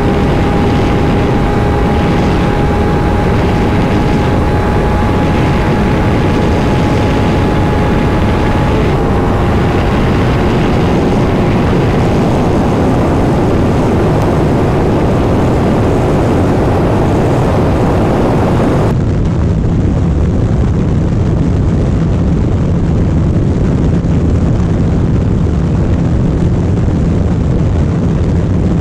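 Sport motorcycle running flat out at a steady high speed, its engine holding an even drone under a broad rush of wind noise. The sound changes abruptly about two-thirds of the way through, at a cut to another recording, where the drone settles to a lower, steady pitch.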